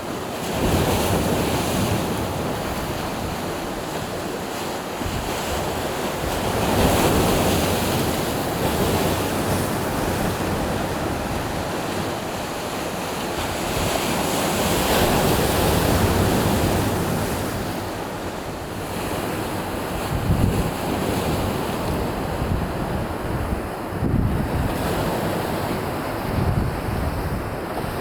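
Sea waves breaking and washing ashore, swelling and ebbing every several seconds, with wind buffeting the microphone.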